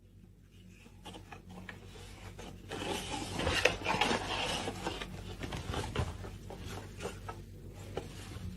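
Rustling and scraping noises, growing louder about three seconds in.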